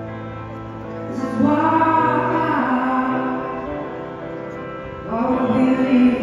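A woman singing live, amplified through a concert PA, over a soft instrumental accompaniment. She sings two long, held phrases, the second starting about five seconds in.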